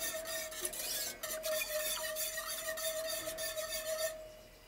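Wire whisk stirring thin sauce in an enamelled cast-iron pot: quick repeated rasping scrapes of the wires against the pot, over a steady faint tone. Both stop abruptly about four seconds in.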